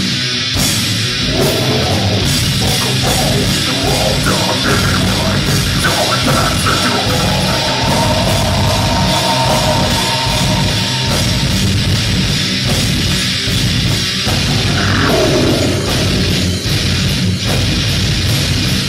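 Live heavy metal band playing loud: distorted guitars and bass over fast drumming, with harsh vocals. About halfway through, the vocalist holds one long note.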